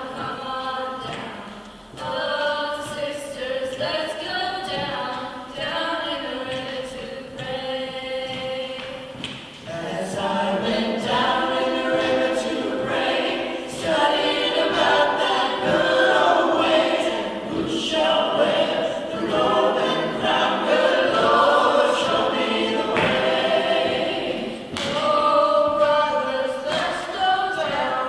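Small mixed choir of children, teenagers and adults singing together, with sustained notes; the singing swells louder about ten seconds in.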